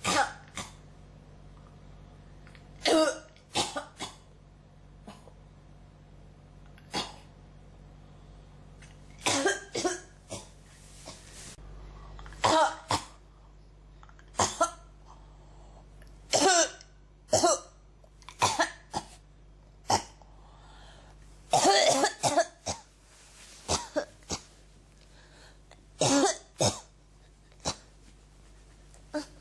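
A person coughing over and over, a cough that won't stop: short coughs every second or two, some single and some in quick runs of two or three, the longest run a little past the middle, over a faint steady low hum.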